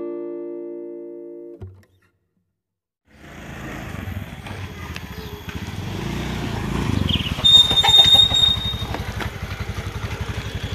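A guitar chord ringing out and fading, cut off about one and a half seconds in. After a short silence, a motor scooter's small engine running as it rides up with two riders, with a brief high-pitched squeal near the middle.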